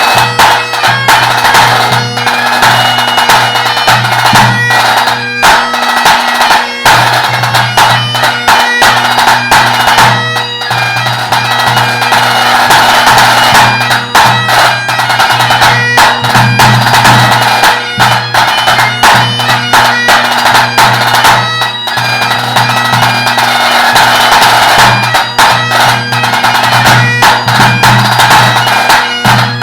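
Great Highland bagpipe playing a tune over its steady drones, with tenor drum strokes beating along in time.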